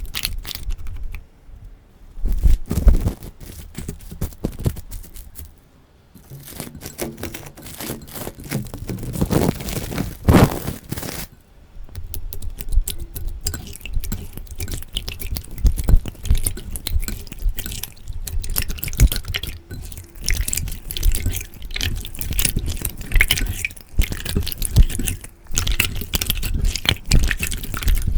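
Slime being squeezed, stretched and poked by hand, giving dense wet clicks, pops and squelches, with a brief lull about six seconds in.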